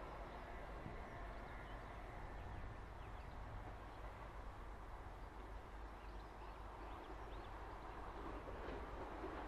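Quiet outdoor background with a few faint bird chirps; near the end the low rumble of an approaching LNER Azuma train begins to rise.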